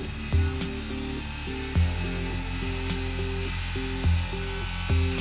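Handheld circular saw cutting across the end of a thick board, a steady hiss of the blade in the wood. Background music with low bass notes every second or two plays over it.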